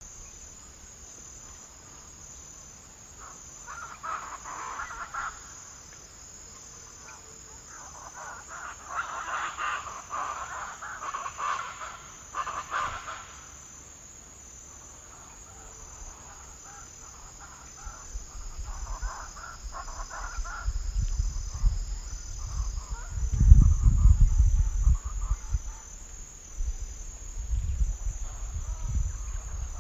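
Night insects, crickets or similar, trilling in a steady high pulsing chorus, with bursts of other animal calls coming and going. A low rumble builds in the second half and is loudest about two-thirds of the way through.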